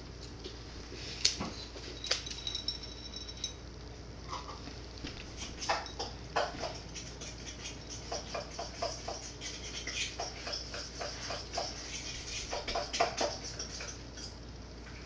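A cat chattering: runs of quick clicks and short chirps, coming in bursts through the middle and latter part.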